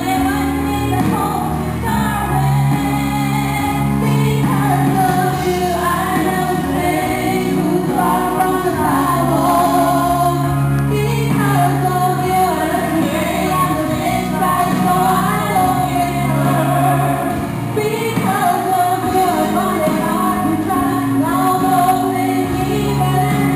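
Two women singing a duet into microphones over instrumental accompaniment with long held bass notes.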